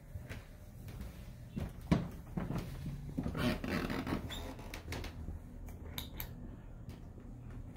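Footsteps on hardwood floor and handling noise from a phone carried at walking pace: a sharp knock about two seconds in, a stretch of rustling a second later, and a few small clicks near six seconds.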